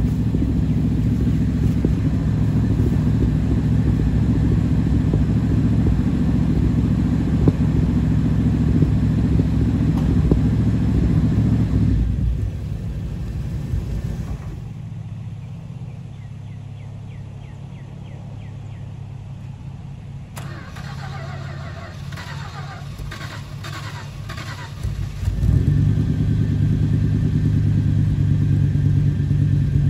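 1969 Dodge D200 pickup's engine running while the truck creeps forward a short way. The sound drops to a quieter level about twelve seconds in and comes back up loud about twenty-five seconds in.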